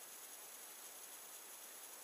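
Near silence: a faint, steady hiss of background noise, with no other sound.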